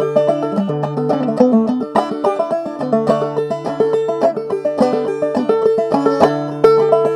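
Solo open-back banjo played clawhammer style: an Irish reel at a brisk, even pace, a steady stream of quick plucked notes ringing over lower sustained strings.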